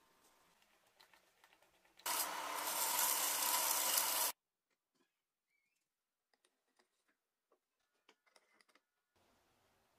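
A plywood band-saw wheel spinning while a tool held against its rim shaves it true: a loud, steady scraping whir lasting about two seconds that cuts off suddenly. Faint clicks before and after.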